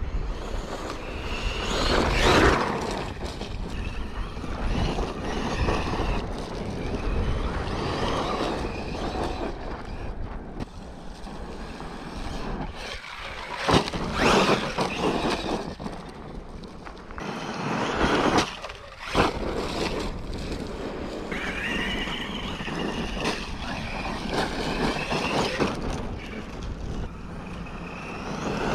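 Traxxas E-Revo 2.0 RC truck running hard on loose sand: its electric motor and drivetrain whine up and down in pitch as it accelerates and slows, with louder rushing bursts of tyres spraying sand a few times.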